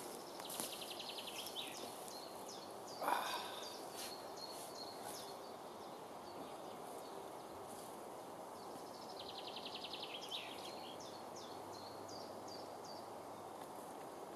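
Quiet woodland ambience with a songbird singing twice, each song a fast trill followed by a few separate short notes. A brief louder noise stands out about three seconds in.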